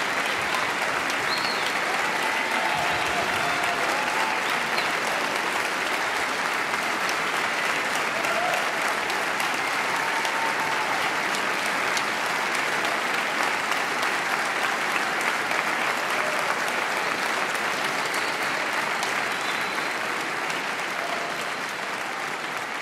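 A large audience and the players applauding steadily in a concert hall, with a few voices faintly heard through the clapping. The applause tapers off a little near the end.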